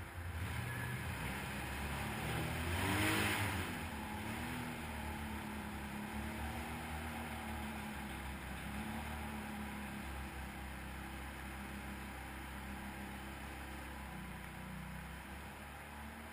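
Can-Am 1000 V-twin ATV engines running at low speed; about three seconds in, an engine revs up briefly and falls back, then settles to steady low-speed running.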